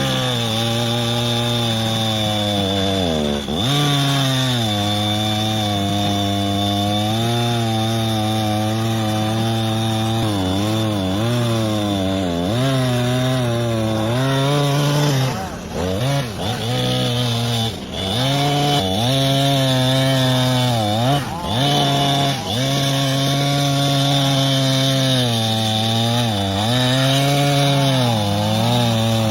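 Two-stroke chainsaw running at high revs while cutting into a tree, its engine pitch dipping briefly under load and recovering again and again.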